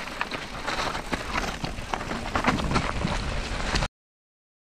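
Canyon Lux mountain bike riding down a dirt trail: a steady rush of tyre noise over loose ground, peppered with frequent rattling clicks from the bike, cutting off suddenly near the end.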